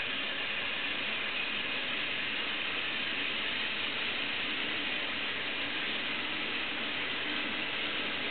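Two battery-powered Plarail toy locomotives pulling a long train over plastic track, their small motors and gearboxes whirring steadily.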